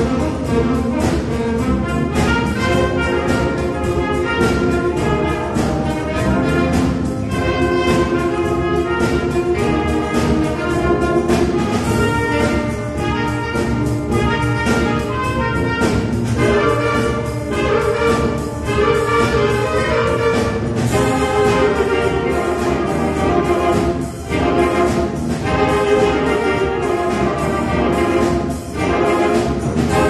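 A symphonic wind band playing live: brass and woodwinds, with clarinets and a sousaphone among them, sounding full chords over a steady beat.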